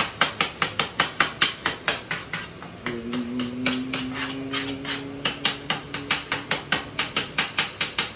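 A metal utensil beating mashed potatoes in a metal saucepan, clacking against the pan in a fast, even rhythm of about five strokes a second that eases briefly near the middle.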